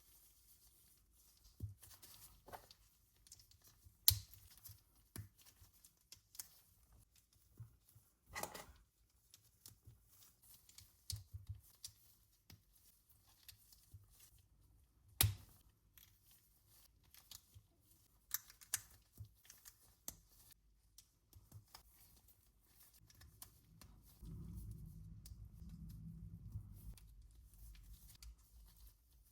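LEGO bricks being handled and snapped together: scattered sharp plastic clicks and taps with light rustling, the loudest clicks about four and fifteen seconds in. A low steady rumble comes in for the last five seconds.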